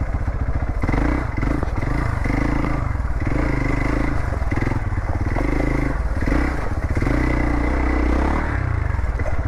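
Single-cylinder adventure motorcycle engine working hard off-road in a low gear, its revs surging up and down as the rider throttles over rough ground, with some clatter from the bike.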